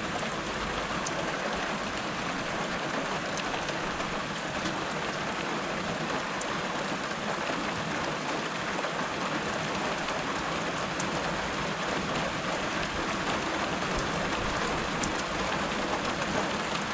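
Steady rain falling on the street and nearby surfaces, with individual drops ticking sharply close by now and then.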